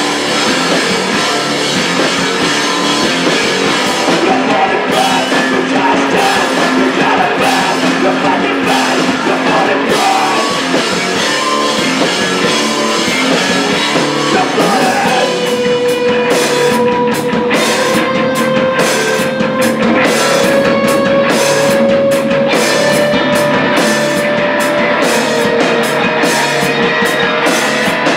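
Live post-punk band playing at full volume: two electric guitars, a bass guitar and a drum kit. From about halfway, a long held note rings steadily over rapid, even drum hits.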